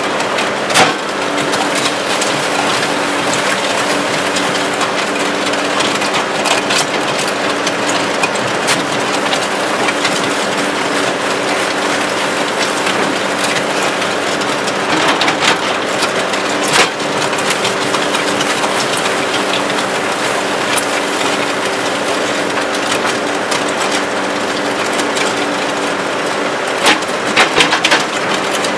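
Skid steer loader engine running steadily, driving the Danuser MegaMixer hydraulic auger as it churns a load of concrete mix in the steel bucket, a gritty grinding noise over the engine's even hum. Occasional sharp knocks, with a cluster of them near the end.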